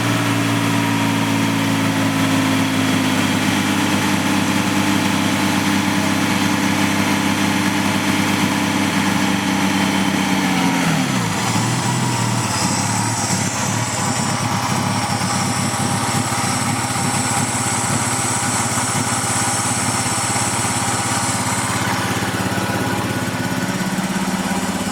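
Mazda KL-ZE 2.5-litre V6 in a Ford Probe GT idling unevenly. The idle holds, drops to a lower speed about halfway through, then climbs again near the end. This is the erratic idle, with a misfire, that the owner is chasing and wonders may be a vacuum leak.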